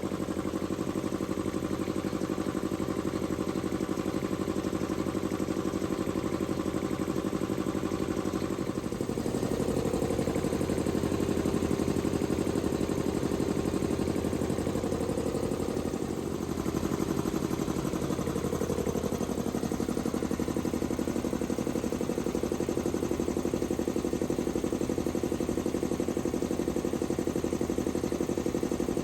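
SAMP 10 HP three-phase air compressor running steadily. About nine seconds in its sound shifts and grows a little louder, with a brief dip near sixteen seconds.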